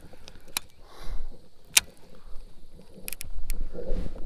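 Several sharp clicks at uneven intervals from a baitcasting reel being handled, with a low rumble building from about three seconds in.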